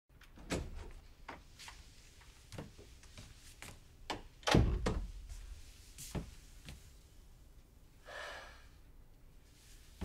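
Footsteps knocking on a hard floor, with a door thudding shut about four and a half seconds in, the loudest knock. A short soft hiss of breath or rustling follows near the end.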